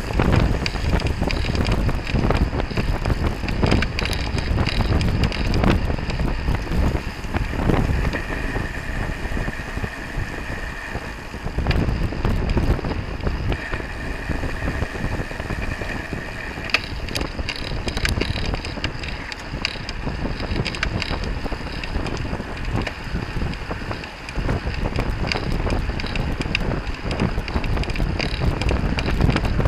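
Wind buffeting the microphone of a camera riding in a pack of road racing bicycles, over a steady road-noise hiss, with scattered sharp clicks.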